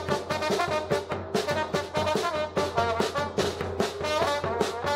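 Small street brass band playing: slide trombone and trumpet carrying the tune over a steady bass-drum beat.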